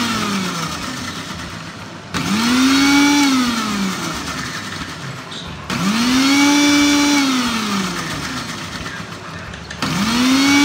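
Electric mixer grinder (mixie) pulsed in short bursts while whipping egg white and oil into mayonnaise in its small jar. Each burst whirs up to a steady whine, holds for a second or two, then winds down in a falling whine as the motor coasts. One burst is dying away at the start, two more follow about 2 and 6 seconds in, and a fourth starts near the end.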